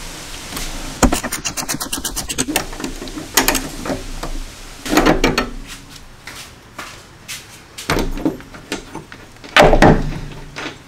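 Hand tools working on the shock's top nut at the upper strut mount: a quick run of ratchet clicks a second in, then scattered clanks of tools being handled. Near the end an impact wrench hammers briefly as it spins the nut off.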